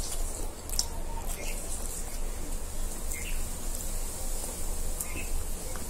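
Chewing and wet mouth clicks of people eating pizza, over a steady low hum, with a few faint bird chirps.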